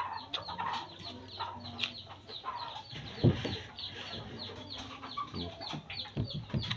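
Chickens clucking, with many short falling chirps in quick succession. One sharp knock about three seconds in.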